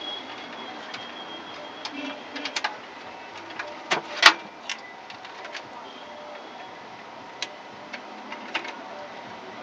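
Scattered clicks and light knocks from hands working inside an HP Compaq desktop's case as the hard disk and its cables are reconnected. The loudest knocks come about four seconds in.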